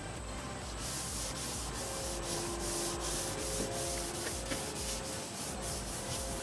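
Rag wiping a car's quarter panel with acetone in quick back-and-forth strokes, about three a second.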